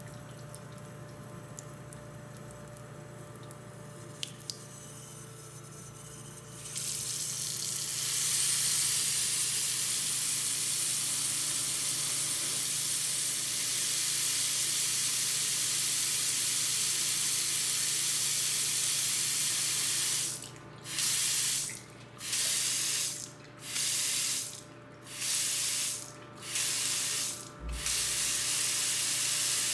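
Water from a tap running into a sink: a faint trickle with a couple of clicks, then about seven seconds in the flow opens up into a loud steady gush. From about twenty seconds in, the gush breaks off and comes back about every second and a half.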